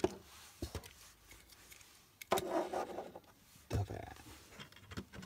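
Die-cast metal toy trucks being set down and pushed about on a tabletop: a sharp click right at the start, a few softer knocks and a short scrape, then a low thud and a couple of clicks near the end.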